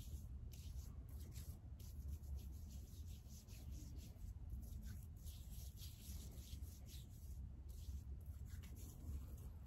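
Faint, fine crackling fizz of a foaming charcoal bubble face mask as its bubbles form and pop, over a low steady hum.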